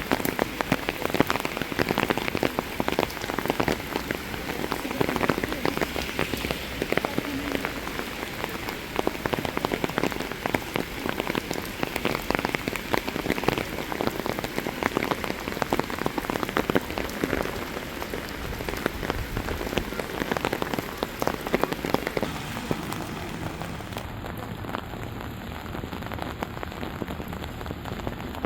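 Steady rain falling, with dense, close raindrop patter on surfaces; it turns a little quieter and duller in the last few seconds.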